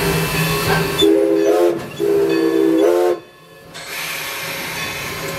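Steam whistle of 2-6-0 steam locomotive #11 blown twice, each blast about a second long and rising slightly in pitch as it ends, over the steady hiss and hum of the locomotive cab.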